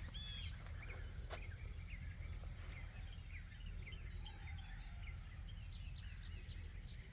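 Outdoor ambience of several songbirds chirping and calling, with many short chirps throughout, over a steady low rumble; a single click about a second in.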